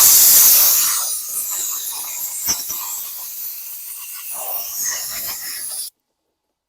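A pressurized spray hissing, loud at first and then lighter with a few faint ticks, cutting off suddenly about six seconds in.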